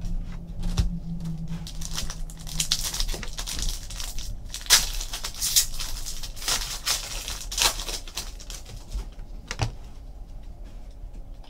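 Trading-card packs being torn open and handled: foil wrappers crinkling and tearing, with quick clicks of cards being flipped through, busiest in the middle of the stretch.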